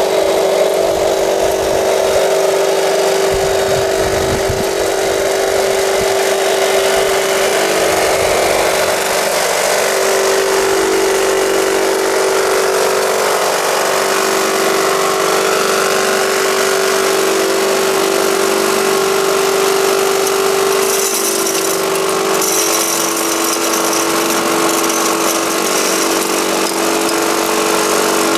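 Radio-controlled Volvo L250G wheel loader model running with a steady mechanical whine as it drives over gravel with a loaded bucket and lifts it. A high hissing rattle joins about two-thirds of the way in.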